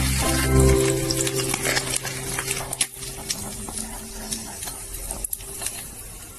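Food being stirred in a hot pan: utensil clicks and scrapes over a sizzling hiss.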